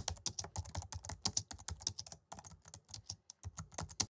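Keyboard typing sound effect: rapid keystroke clicks, about ten a second, in time with text being typed out on screen. The clicks stop abruptly near the end.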